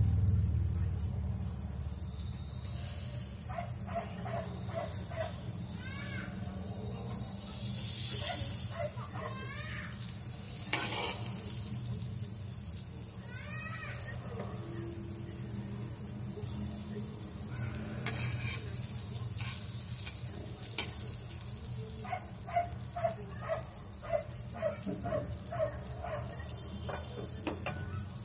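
Butter sizzling gently as it melts and bubbles in a hot pan, over a steady low hum. Twice a run of short repeated chirps, about two a second, stands out, most sharply near the end.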